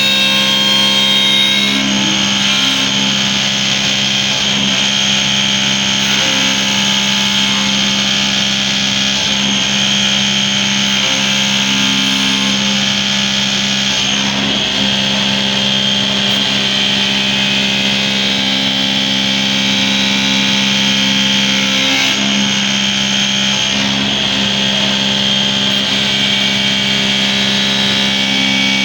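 Schnitzer 4-axis CNC wood lathe running steadily, its motors giving a steady whine of several tones over a rushing noise.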